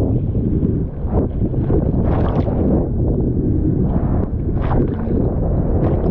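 Wind buffeting the microphone with a steady low rumble, broken by a few short hissing rushes.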